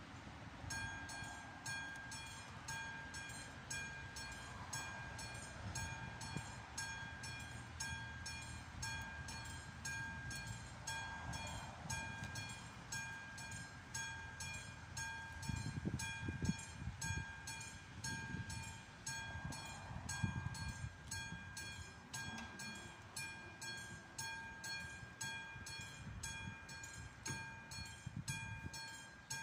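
Classic mechanical warning bell of an AŽD 71 level crossing striking steadily, about two strikes a second, starting just after the start: the crossing is warning of an approaching train and its barriers are lowering. A low rumble rises and falls underneath around the middle.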